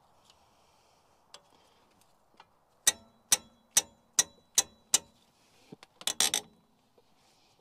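Ratchet wrench clicking while undoing the front hub bolts: six loud, evenly spaced clicks, a little over two a second, then a quick cluster of clicks near the end.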